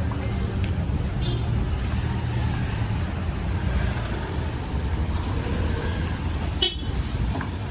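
City street traffic: vehicle engines run with a steady low rumble, and there is one sharp click near the end.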